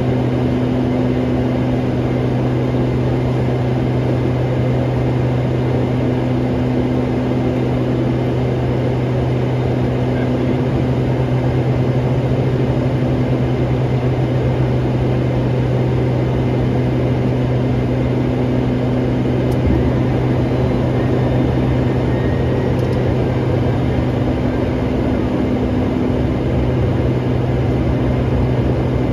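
Steady drone of a single-engine light aircraft's piston engine and propeller, heard from inside the cabin in flight, with a constant low hum and an even rushing noise.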